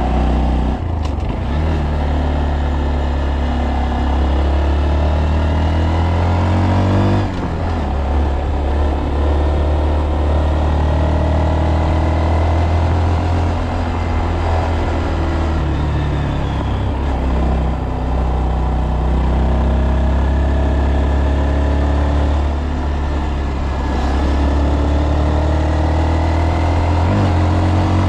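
Honda Monkey 125's single-cylinder four-stroke engine running while ridden, its note rising and falling as it speeds up and eases off, with a brief break in the note about seven seconds in.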